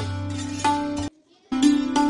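Background instrumental music of a plucked string instrument playing regular notes over a steady drone. It cuts out completely for a moment just after a second in, then resumes.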